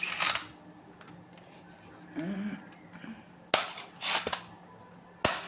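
Plastic parts of a cheap toy dart gun clicking and rattling as a piece is pushed and snapped onto it: a short rustle at the start, then sharp clicks past the middle and near the end.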